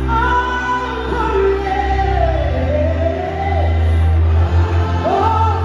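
Live gospel worship music: a woman sings a held, gliding melody into a microphone over band accompaniment with deep, sustained bass notes.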